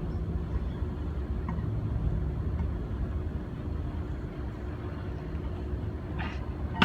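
Steady low rumble of a vehicle, with a single sharp metallic clank near the end.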